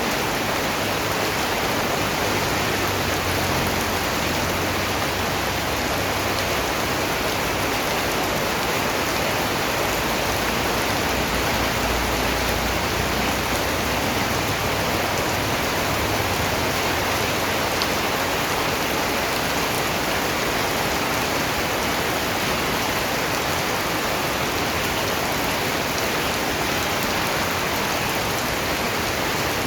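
Steady rain falling and pattering on surfaces, a dense even hiss that does not change. A faint low rumble rises under it around the middle.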